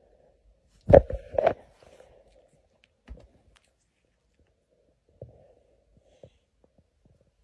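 Domestic cat growling in a low, uneven rumble, with two short loud sounds about a second in and a few faint clicks later.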